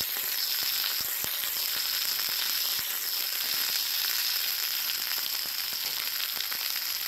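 Chicken breast sizzling as it pan-sears in hot oil in a nonstick frying pan. A slotted spatula gives a few sharp clicks against the pan about a second in.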